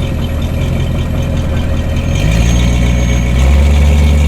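An off-road vehicle's engine idling, then revving up about two seconds in and rising again, louder, near the end.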